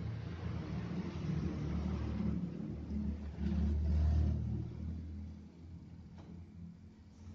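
A low rumble that swells to its loudest about four seconds in and then fades away, with a few faint clicks near the end.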